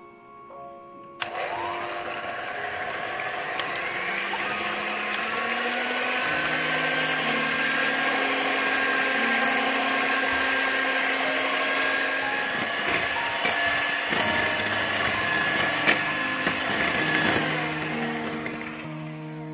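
Electric hand mixer with twin wire beaters whisking egg whites in a ceramic bowl. The motor starts about a second in with a rising whine, runs at a steady high pitch as the whites foam up, and cuts off near the end.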